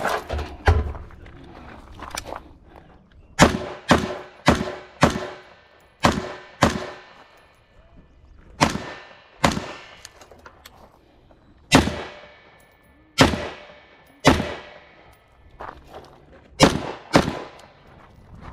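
Gunshots fired in an uneven string, about fifteen shots spaced from half a second to about two seconds apart, each with a short ringing echo.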